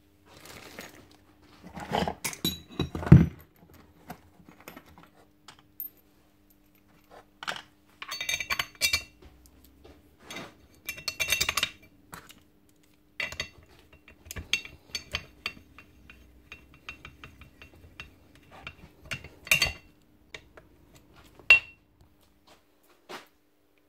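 Metal hammer parts clinking and clattering on a workbench as they are handled and set down, in irregular bunches with a heavier knock about three seconds in.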